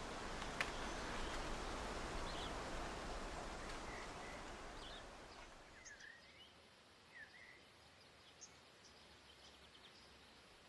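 Outdoor ambience: a soft rushing of wind through grass fades out about halfway through, leaving a few faint, scattered bird chirps.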